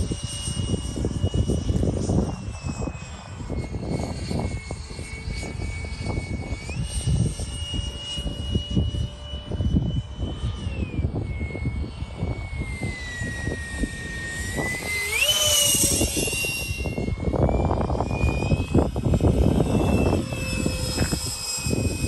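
70 mm electric ducted fan of a model Saab 37 Viggen jet flying overhead: a high whine that steps up and down with the throttle. It sags lower past the middle and rises sharply about fifteen seconds in, with a gusty low rumble underneath.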